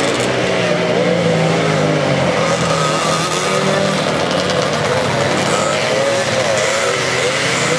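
A pack of classic motocross motorcycles revving hard together as they pull away from the start of a heat, many engine notes rising and falling over one another.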